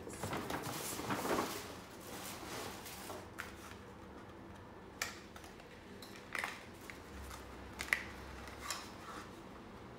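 Cardboard gift box and packaging being handled: a scraping rustle for the first two or three seconds, then a handful of separate sharp clicks and taps as a small boxed hand lotion is taken out and turned over.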